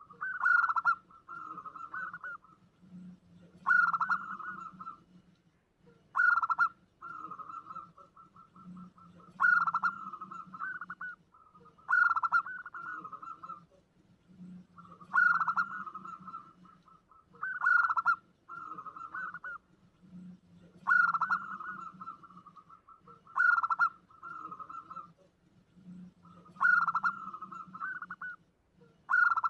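Zebra dove (perkutut) cooing, one phrase about every two to three seconds. Each phrase is a loud opening note that runs into a quick rolling trill.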